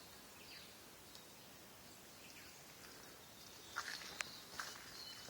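Faint rainforest ambience with a few short, high, falling bird whistles. Footsteps start crunching on the path about two-thirds of the way in.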